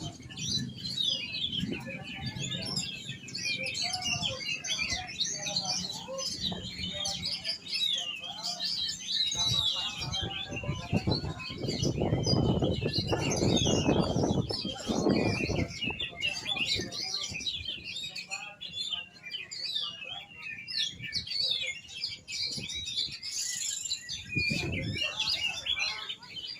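Oriental magpie-robin (kacer) singing a rapid, unbroken stream of chirps and whistles, with low rumbles in the middle and again near the end.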